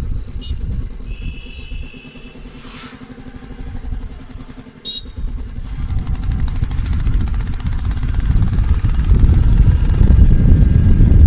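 Royal Enfield Meteor 350's single-cylinder engine and exhaust heard from the saddle while riding: the low exhaust rumble falls away over the first couple of seconds as the throttle is eased, then builds again from about five seconds in as the bike accelerates.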